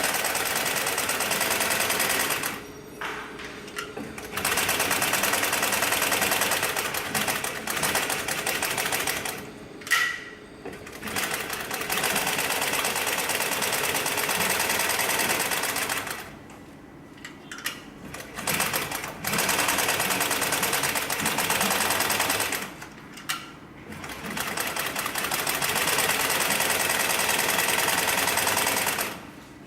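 Heavy-duty triple-feed walking-foot industrial sewing machine with a barrel hook, of the Juki TNU-243 type, stitching heavy sling material. It sews in runs of several seconds, pausing briefly four times, and stops near the end.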